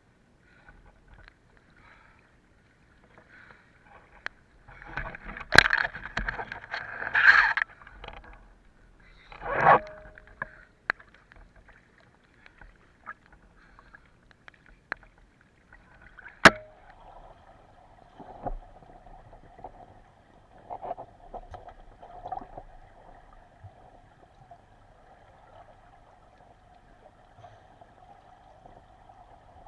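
Water sloshing and gurgling around the camera, in uneven bursts with a few sharp clicks; the loudest click comes about halfway through, followed by a faint steady hum.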